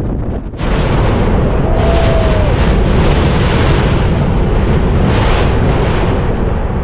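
Mount Yasur volcano erupting: a loud roar that starts suddenly about half a second in and carries on strongly, mixed with wind on the microphone.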